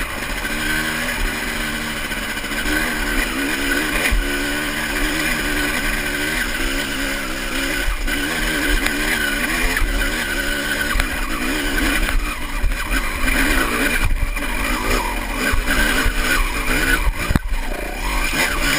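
Honda CR250 single-cylinder two-stroke dirt-bike engine revving hard and rising and falling in pitch under load as it climbs a loose, rocky slope, heard from the rider's helmet. A sharp knock comes near the end.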